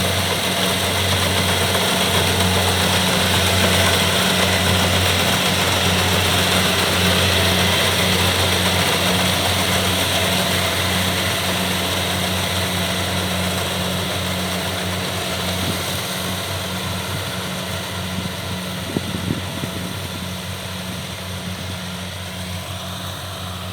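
Kubota DC70 rice combine harvesters running at work in the field, a steady diesel engine drone with a machine hum, slowly fading over the second half. A few short clicks about three quarters of the way through.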